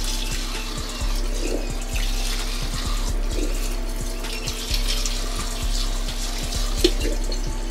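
Kitchen faucet running steadily into the sink while things are rinsed under it, over background music.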